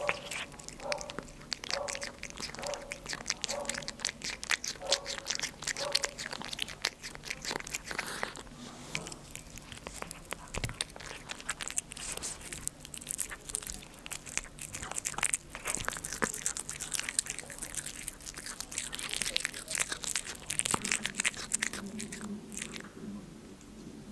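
Close-miked cat eating soft food from a small dish: quick, wet chewing and licking clicks, quieter near the end.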